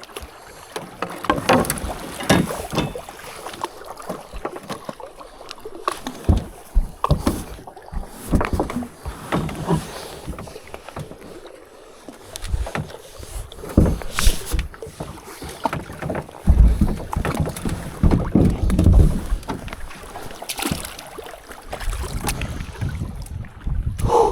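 A kayak coming ashore: paddle splashes and irregular knocks and scrapes of the hull and gear, with gusts of wind buffeting the microphone, heaviest past the middle.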